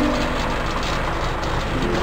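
Old truck's engine running steadily as it drives, with a quiet tune of held notes underneath.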